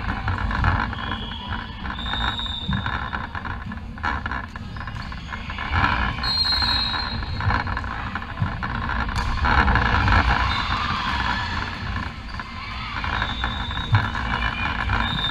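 Indoor volleyball rally on a wooden court: sneakers squeak briefly a few times and the ball is struck with sharp slaps, the loudest near the middle and near the end. Under it runs a steady background din of the hall.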